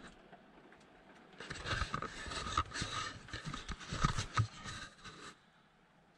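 Scraping and rustling with several sharp knocks, as the camera is handled and moved through a cramped gap between timber, pipes and insulation. It starts over a second in, lasts about four seconds and stops suddenly.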